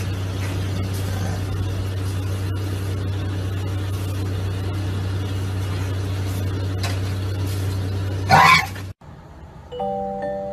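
A steady low hum over a background hiss, broken by a brief loud burst about eight seconds in. The sound then cuts off, and a few notes of glockenspiel-like mallet-percussion music begin near the end.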